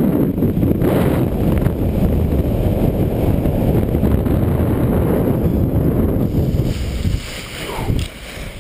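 Loud wind rushing over the helmet-camera microphone as a speedwing paraglider flies fast and low. It drops off about seven seconds in as the pilot touches down.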